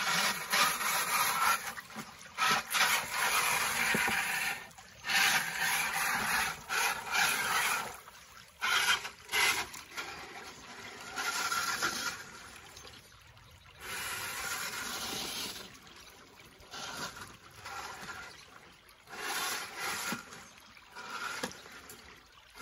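Radio-controlled car driving in short stop-start bursts through a shallow rocky creek and over its gravel bank. The motor whines and the tyres splash and scrape over stones, over the steady run of the creek water.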